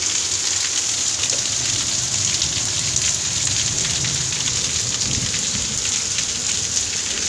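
A hailstorm with rain: a steady, dense hiss of falling precipitation, crowded with many small ticks of hailstones striking hard surfaces.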